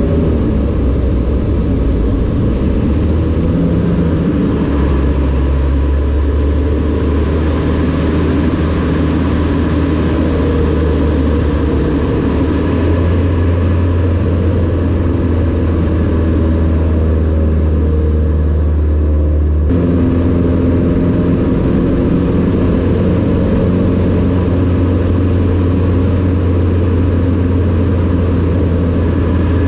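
Cessna 152 Aerobat's four-cylinder Lycoming engine and propeller running at power, a loud steady drone heard from inside the cockpit. Its note shifts a few times as the aircraft manoeuvres, with an abrupt change in tone about twenty seconds in.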